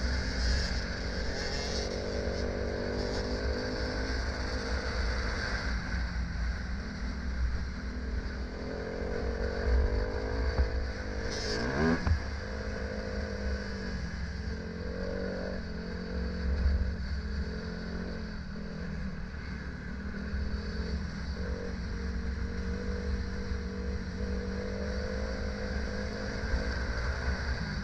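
Dirt bike engine running at trail speed, its pitch rising and falling with the throttle, over heavy wind rumble on a helmet-mounted camera. It revs up quickly about halfway through, and a few knocks come from bumps in the trail.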